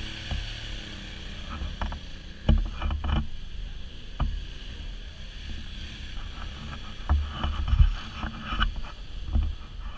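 ATV riding a rough, muddy dirt trail: a muffled engine rumble under wind rush, with knocks and low thumps as the machine jolts over bumps, the heaviest a few seconds in and again near the end.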